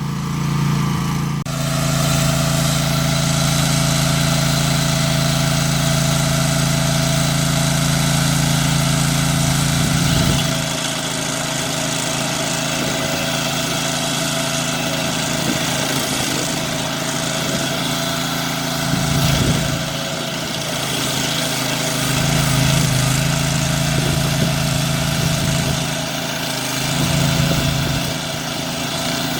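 Stump grinder running, grinding out a tree stump; its low engine note drops away and comes back several times as the load changes.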